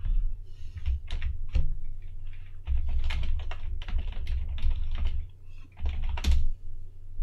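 Typing on a computer keyboard: a run of quick keystrokes, a few scattered presses at first and then a fast burst of typing with a short pause about three-quarters of the way through.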